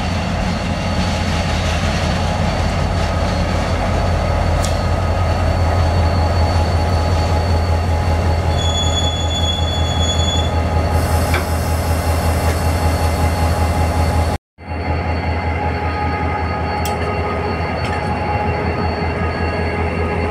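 Diesel locomotive passing close with its engine running in a steady low drone, a brief high squeal about nine seconds in. The sound cuts out for an instant about fourteen seconds in, then the locomotive and its car-carrier wagons keep rolling past.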